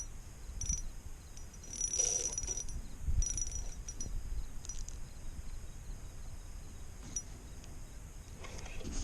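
Fishing reel clicking in several short metallic bursts with low knocks in between, as a bass is played on light line from a kayak.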